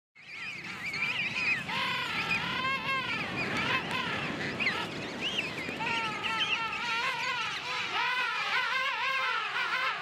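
A king penguin colony calling: many overlapping warbling calls with wavering pitch, fading in at the start and running on without a break.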